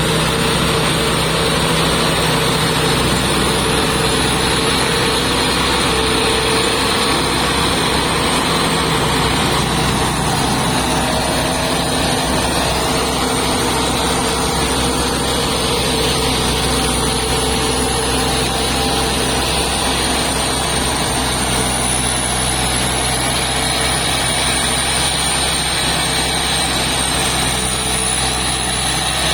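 Large rice combine harvester's diesel engine running steadily at working speed, with a high thin whine that wavers slowly up and down.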